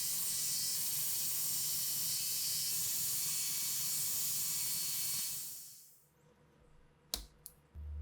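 Steady hiss of compressed air spraying, which fades out about five and a half seconds in, followed by a sharp click a little over a second later.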